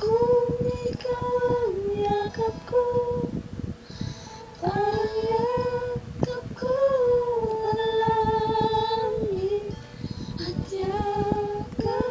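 Music with a female voice singing a slow melody of long held, wavering notes, pausing briefly about four seconds in.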